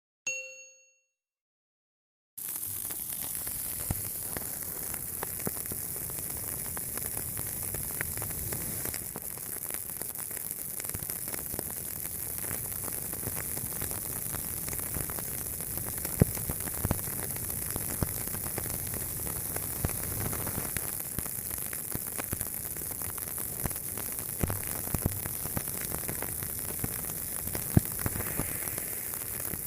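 Big fire burning: a steady hiss with scattered crackles and a few louder pops, starting about two seconds in after a brief ringing chime at the very start.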